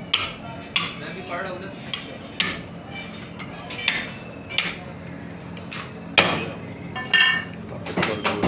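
Butcher's cleaver chopping through mutton onto a wooden chopping block: sharp, irregular knocks, about one or two a second. Near the end there is a short ringing metal clink.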